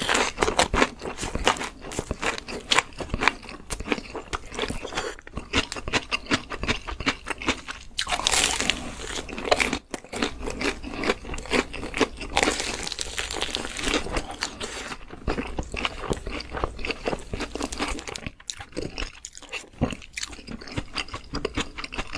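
Close-up crunching of food being bitten and chewed, a dense, irregular run of sharp crackles with no pause.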